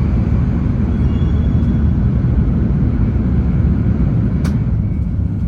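Steady low rumble of an E5 series Shinkansen running, heard from inside the passenger cabin, with a single brief click near the end.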